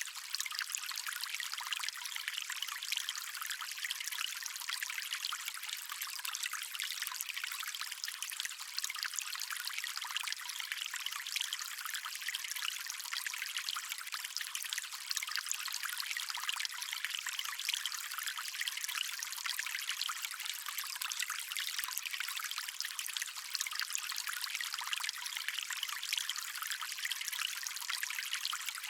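Water stream trickling steadily, a light, high hiss of flowing water with no deep rumble.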